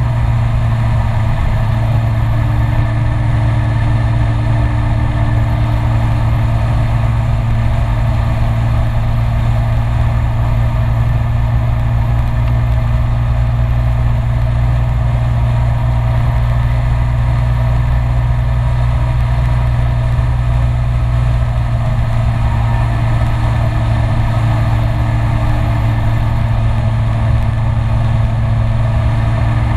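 Kymco Citycom S 300i scooter's single-cylinder engine running steadily at cruising speed on the open road, a constant low hum under an even rush of wind and road noise.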